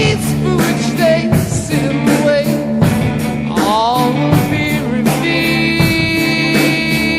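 Rock music soundtrack with a singing voice, guitar and a steady beat.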